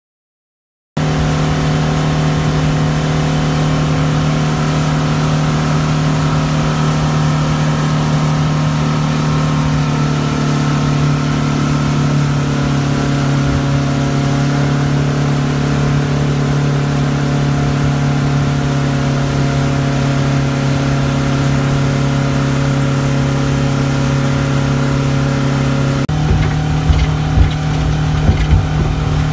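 A 150 hp outboard motor running a boat at speed: a steady, loud drone that starts abruptly about a second in and shifts slightly in pitch about ten seconds in. Near the end the tone changes suddenly and irregular low thumps join in.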